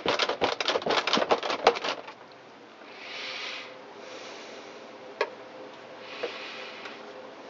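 A stainless steel applicator tool scraping rapidly for about two seconds, spreading the last of the mixed JB Weld epoxy onto the crack in a plastic snow shovel. After that come a few soft rustles and two light clicks.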